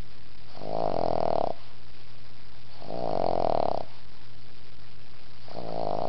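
Boston Terrier snoring in his sleep: three snores, each about a second long and about two and a half seconds apart, the last starting near the end.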